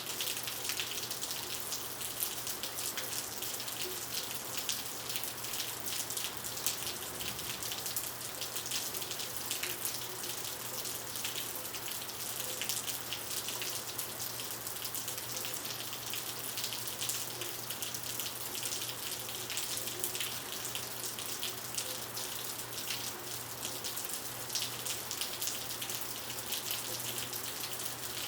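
Heavy rain falling on asphalt: a steady hiss full of dense droplet ticks, even throughout.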